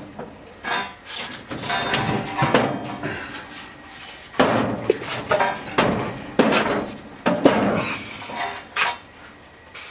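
Heavy steel girder being slid into an opening in a stone wall: an irregular string of metallic knocks and scrapes of steel against stone and rubble, loudest a little after halfway.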